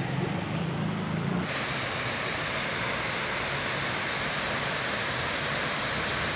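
Steady rush of water pouring over a small river weir, starting suddenly about a second and a half in. Before it, a low steady hum.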